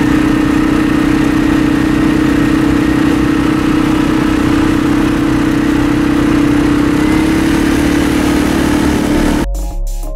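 ATV engine running at a steady speed with a constant whine, rising slightly in pitch about seven seconds in. Near the end it cuts off suddenly and electronic music with a beat takes over.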